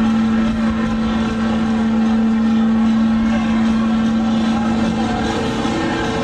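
Theme-park thrill ride's drive machinery running, a steady hum at one unchanging pitch.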